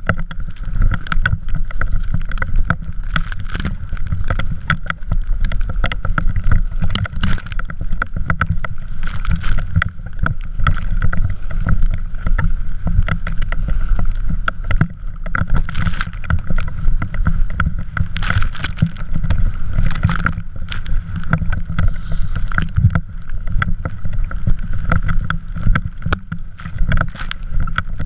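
A drift trike running fast over snow, heard on a GoPro with steady low wind rumble on the microphone and frequent rattles and knocks throughout.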